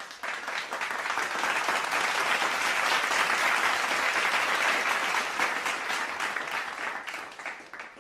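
Audience applause, many hands clapping, swelling in over the first second, holding, then fading out near the end.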